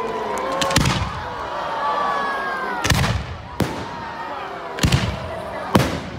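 Aerial fireworks going off in sharp bangs, about five in all, spaced irregularly a second or so apart, each with a low rumble after it. Voices of a crowd call out underneath.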